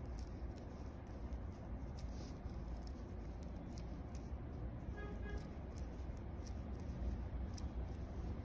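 Knitting needles ticking softly and irregularly as stitches are knitted by hand, over a low steady background hum.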